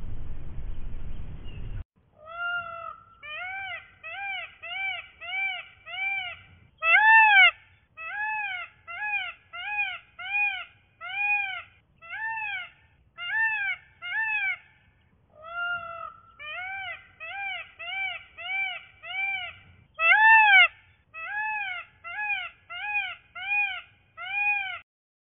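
Indian peacock calling: a rapid series of short calls, each rising then falling in pitch, about two a second, with two longer, louder calls among them. The calls are preceded by about two seconds of low, steady noise.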